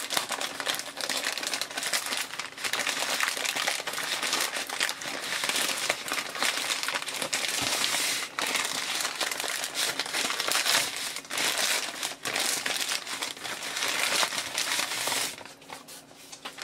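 Plastic courier mailing bag crinkling and rustling as it is handled and torn open by hand: a dense, crackly rustle that goes quieter near the end.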